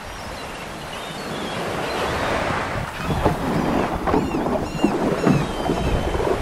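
Small surf washing on the shore and water splashing around a paddleboard as it is launched and climbed onto, louder and choppier in the second half, with wind buffeting the microphone.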